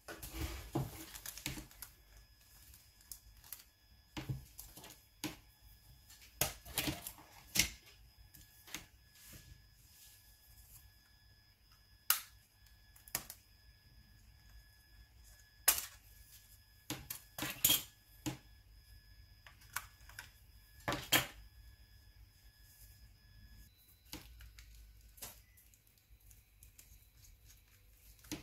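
Scattered clicks, taps and snaps of a Nokia N93 phone's casing being handled and opened by hand, at irregular intervals, with a few sharper clicks standing out.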